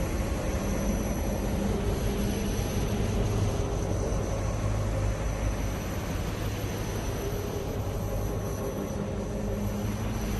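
NASA sonification of a planet's radio and plasma-wave emissions recorded by a spacecraft: a steady, deep, noisy drone with a few faint held hums in it.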